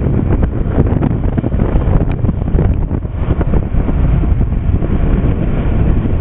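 Strong wind buffeting the microphone on a sailboat under sail: a loud, steady low rumble with no letup.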